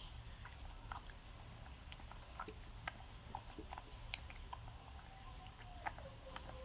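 Faint, scattered little clicks and smacks of a pet monkey eating, over a low steady hum.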